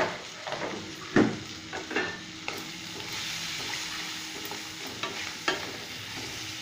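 Onion-tomato masala sizzling in mustard oil in a stainless steel kadai while it is stirred, with a few sharp clacks of the stirring utensil against the pan. The spiced masala (salt, turmeric, cumin powder just added) is being sautéed down before the poppy-seed paste goes in.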